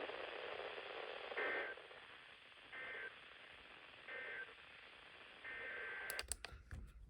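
Weather radio receiver hissing with static, then four brief two-tone SAME digital data bursts about a second and a half apart, the last one longer. The short bursts are typical of the EAS end-of-message code that closes an alert. From about 6 seconds in come rapid sharp clicks over a low hum.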